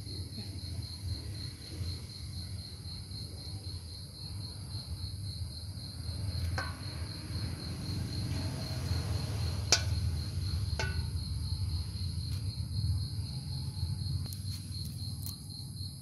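An insect chirping steadily in a high, even pulse of about three to four chirps a second, over a low rustling of hands working food in a metal bowl, with a few sharp clicks.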